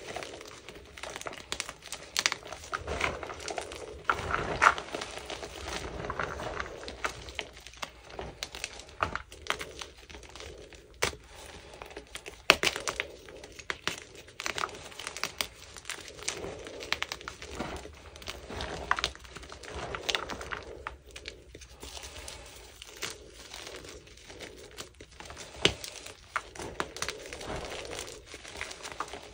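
Hands squeezing and crumbling chunks of gym chalk treated with fabric softener: a continuous crunchy crumbling, dense with irregular sharp crackles and snaps, a few of them louder.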